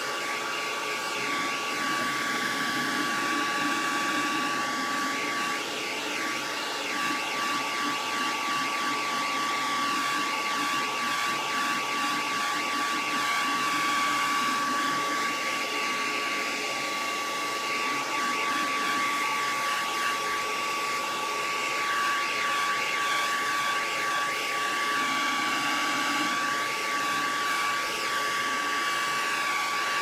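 Hand-held hair dryer running steadily to speed the drying of acrylic paint and spray glue, a constant whine over the rush of air.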